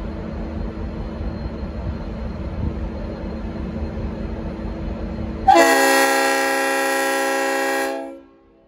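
Low rumble of a V/Line N class diesel locomotive, then about five and a half seconds in its Leslie RS5T five-chime air horn sounds one loud, sustained chord for about two and a half seconds before dying away quickly.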